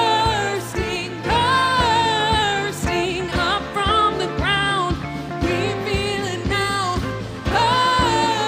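Live worship band playing a song: women's voices singing long held phrases, with acoustic guitars, keyboard and a drum kit keeping a steady beat.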